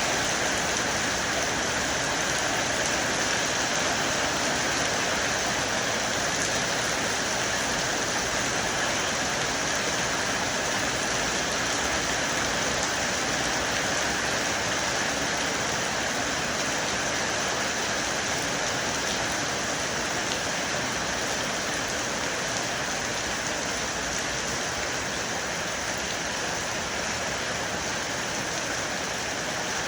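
Heavy rain falling steadily onto an air conditioner unit, an even, unbroken hiss of rain.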